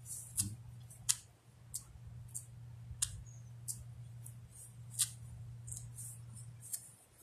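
Feathers being plucked by hand from a dead woodpecker: a dozen or so short, sharp, high ticks as the feathers pull free, spaced irregularly about every half second, over a steady low hum.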